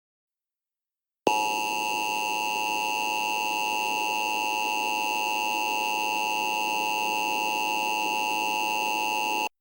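Emergency Alert System attention signal: a steady electronic alert tone that starts abruptly just over a second in, holds unchanging for about eight seconds and cuts off sharply. It heralds an emergency alert message, here a tornado warning.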